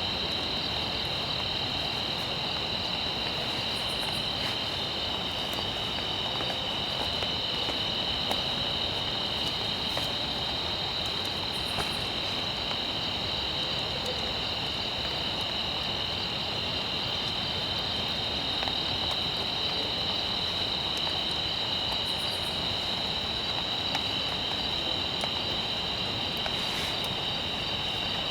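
Steady insect chorus: a continuous high-pitched trill that holds two even pitches without a break, over a faint even hiss.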